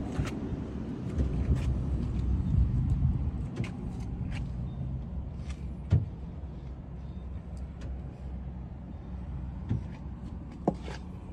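Steady low rumble with a handful of light clicks and taps scattered through it; the sharpest tap comes about halfway through.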